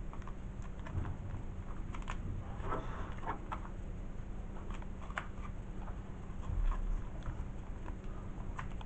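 Plastic comic-book bags crinkling and rustling as a stack of bagged comics is handled and shifted, with scattered light clicks and taps, over a low steady hum.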